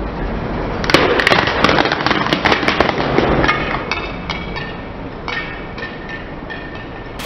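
Car tyre rolling over a row of hollow plastic M&M-shaped shells and crushing them: a dense run of loud cracking and crackling starting about a second in and lasting some two and a half seconds, then scattered lighter snaps. A low rumble of the car runs underneath.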